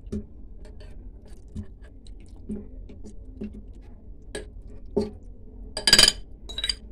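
Yogurt-marinated mutton sliding in soft wet plops from a glass bowl into a pressure cooker. Toward the end a metal spoon scrapes and clinks against the glass bowl; these clinks are the loudest sounds.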